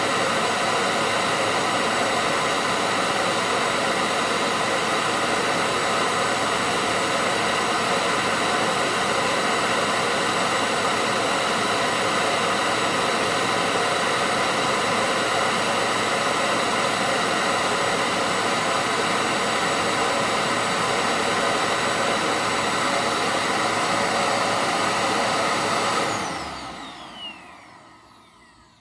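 Hoover Powerdrive XL vacuum cleaner motor running steadily at full suction during an airflow test. About 26 seconds in it is switched off, and its whine falls in pitch as the motor spins down.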